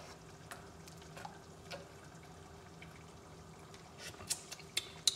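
Faint drips and small pops from a pan of thick sauce on the stove, over a faint steady hum, with a few sharper clicks about four to five seconds in.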